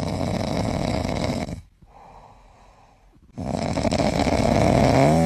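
Loud snoring: two long noisy breaths, each lasting under two seconds, with a quiet pause between them. The second breath ends in a brief rising-then-falling tone.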